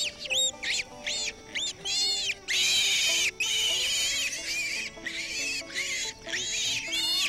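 Newborn wild hog piglets squealing in distress as they are picked up: many short, high squeals in quick succession, with two longer drawn-out squeals about two and a half seconds in. Soft background music plays underneath.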